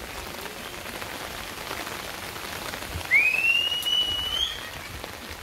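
Steady rain falling. About three seconds in, a single whistled note slides up and then holds for about a second.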